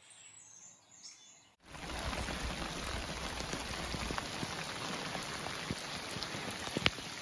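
Steady rain falling, a dense even hiss with scattered sharper drop hits close by, starting suddenly about one and a half seconds in after a nearly quiet opening; one drop strike near the end stands out.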